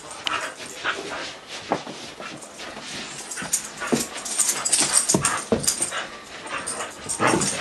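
A dog playing tug of war with a sock, making small whimpering noises amid scattered, irregular scuffles and knocks.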